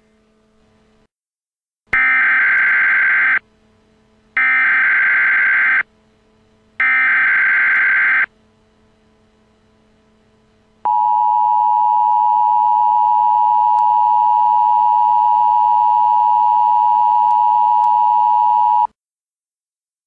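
Emergency Alert System header: three identical bursts of warbling digital data tones, each about a second and a half long, followed by the National Weather Service's steady single-pitch attention tone held for about eight seconds. Together they signal the start of a tornado warning broadcast.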